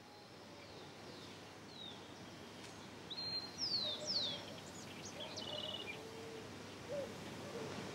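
Birdsong over a steady outdoor background hiss that fades up gently: several quick downward-sliding chirps and a short trill about three to four seconds in, then fainter, lower calls.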